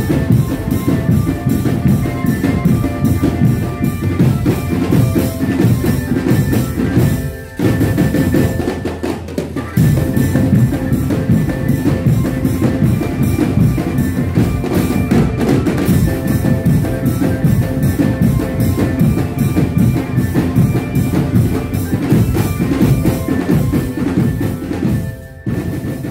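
Javanese drumband playing a fast, driving beat on bass drums and snare drums, with a few held melody notes above it. The drumming thins out for a couple of seconds about seven and a half seconds in, then comes back in full.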